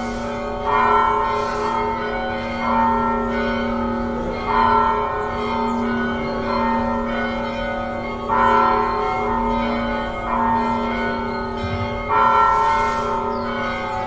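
Church bells tolling, a fresh stroke about every two seconds, the strokes alternating stronger and weaker, each one ringing on into the next so the hum never dies away.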